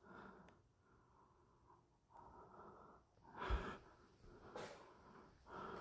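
Near silence broken by faint breaths and footsteps of a person walking, with a soft thump about three and a half seconds in.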